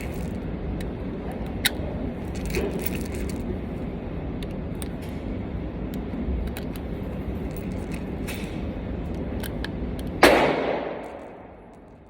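A few sharp clicks over steady background noise, then a single loud shot from a Glock 32 pistol in .357 SIG about ten seconds in, with a tail that fades over about a second.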